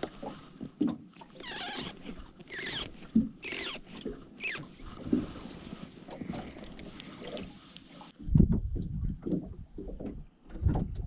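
Small waves lapping against a fishing boat's hull, with clicks from handling a rod and reel and a few short falling whistle-like calls. After a cut about eight seconds in, heavy wind buffeting on the microphone and louder waves against the hull take over.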